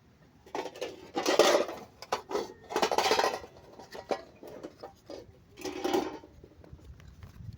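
Small plastic toy pieces and their packaging being handled, clinking and rustling in three bursts a second or two apart.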